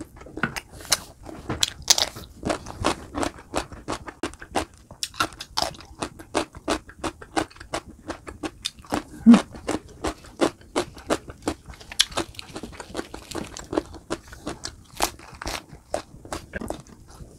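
Close-miked chewing and crunching of roasted chicken and rice, a quick irregular run of short wet clicks and crunches, several a second.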